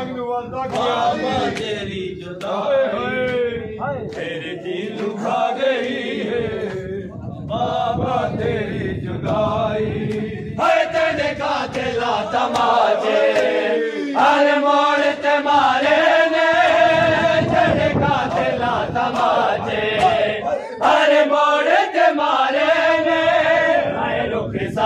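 A group of men chanting a Punjabi noha, a Shia mourning lament, with sharp strikes of hands on chests (matam) sounding through the chant.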